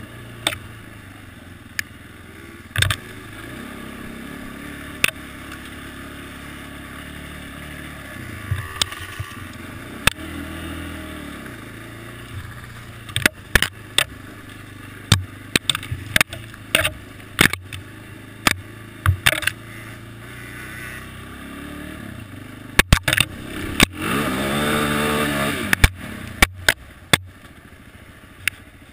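Quad (ATV) engine running at riding speed along a rough dirt trail, with frequent sharp knocks and rattles. About 24 seconds in the engine revs up loudly for a couple of seconds, its pitch rising and falling back. Heard from the rider's helmet camera.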